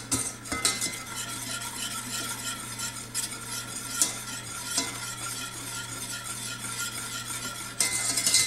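Wire whisk stirring a thickening white sauce in a stainless steel saucepan, the wires scraping and ticking against the pan, with a couple of sharper clinks about four seconds in and near the end, over a steady low hum.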